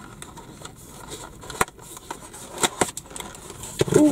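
Cardboard snack box being pried open by hand: a few sharp cracks and scrapes of the card, about a second and a half in and again near three seconds. A short voice sound comes right at the end.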